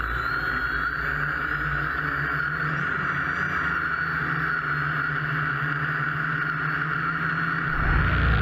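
Electric motors and propellers of a home-built multirotor drone running as it lifts off: a steady whirr with a thin high motor whine that drifts in pitch. Music comes in near the end.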